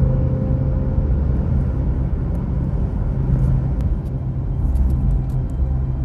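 Car driving at road speed, heard from inside the cabin: a steady low rumble of tyres and engine, with a few faint ticks in the second half.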